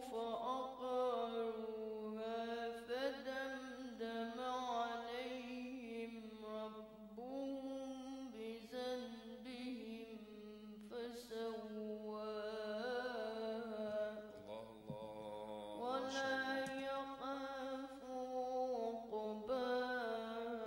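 A boy reciting the Quran in Arabic in the melodic chanted style, holding long wavering notes into a microphone, in long phrases with short pauses for breath.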